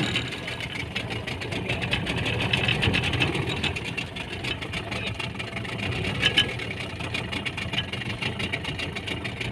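Fishing boat's engine idling steadily, a low even running with a fine regular pulse, while the boat sits nearly still on calm water.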